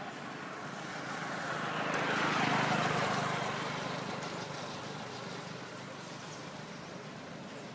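A motor vehicle driving past, growing louder over the first couple of seconds and then fading away.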